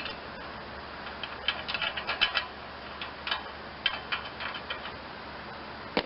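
Scattered light metallic clicks and clinks of hand tools and engine parts being handled while the engine's sheet-metal covers are taken off, in a quick cluster about two seconds in and another around four seconds.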